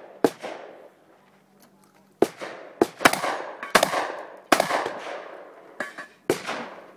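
A string of shotgun shots, about seven, fired at uneven intervals. There is one shot early on, then a quick run of shots after a pause of about two seconds, and each shot trails off in a long echo.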